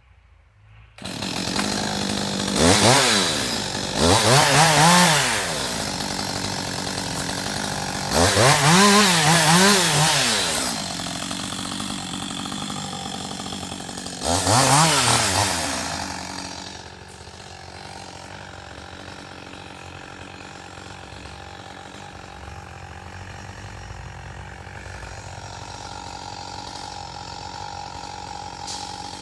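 Two-stroke chainsaw cutting an ash log. The engine revs up and falls back about four times, then settles to a steady, quieter running speed for the second half.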